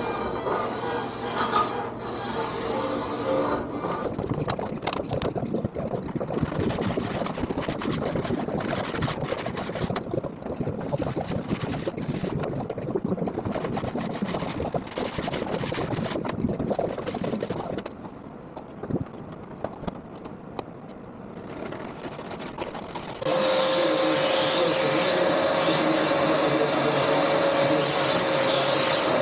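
Ski or snowboard tuning: repeated scraping and rasping strokes on the board's base or edges, quieter for a few seconds after about two-thirds through. Near the end a small electric motor starts and runs with a steady hum.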